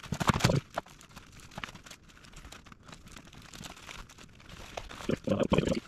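Rustling and scuffing of a fabric dump pouch and belt webbing being handled as a strap is threaded through the battle belt's MOLLE loops, louder near the start and again near the end.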